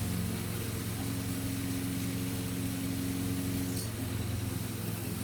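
A steady low mechanical hum, with a few faint held tones that come and go above it.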